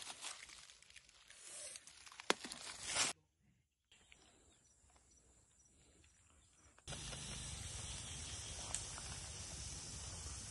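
Dry leaf litter rustling and crackling as a hand rummages through it, with a sharp snap about two seconds in. It cuts off suddenly to a much quieter stretch, and from about seven seconds in a steady outdoor hiss with a low rumble takes over.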